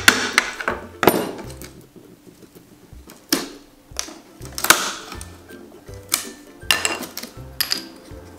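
Background music with a steady beat, over short scrapes and knocks of a hand tool working at wooden dollhouse siding and trim.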